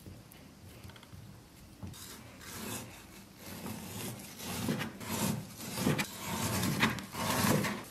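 A Chinese cleaver cutting through raw pork belly and knocking on a wooden chopping block, dicing it into small cubes. The strokes begin sparse and quiet, then come faster and louder in the second half.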